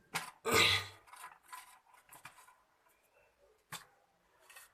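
Handling noises from a plastic container or bag of cut lemon being packed: a sharp click, a louder rustle or scrape about half a second in, then scattered soft rubs and taps, with another click later.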